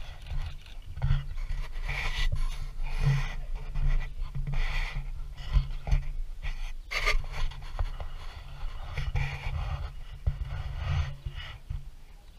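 Wind buffeting the camera's microphone: a steady low rumble with irregular breathy gusts rising and falling every second or so.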